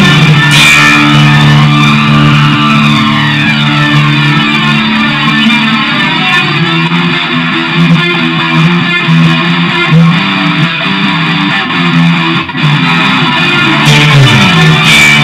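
Instrumental passage of a progressive rock song: sustained electric guitar and bass chords, with sweeping effects gliding up and down over them.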